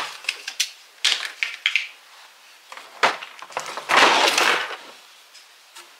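Cosmetic containers being handled while rummaging through a drawer: a string of small clicks and knocks, with a louder rustling scrape lasting about a second, about four seconds in.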